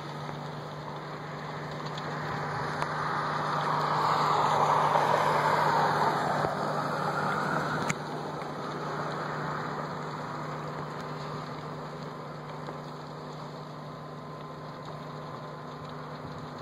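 A vehicle engine runs steadily at idle, a low continuous hum. Over it a rushing noise builds for a few seconds and then cuts off sharply about eight seconds in.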